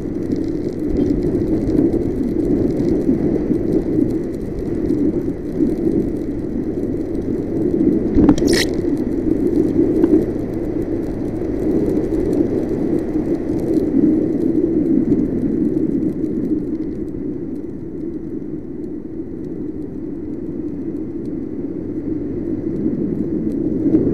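Yamaha NMAX scooter riding on a wet road: a steady blend of engine, tyre and wind noise on the onboard camera's microphone, with a brief sharp noise about eight seconds in.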